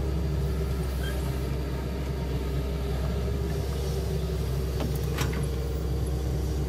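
Radio-controlled Cat excavator model running as it drives along on its tracks: a steady low rumble with a faint hum, and a couple of faint clicks about five seconds in.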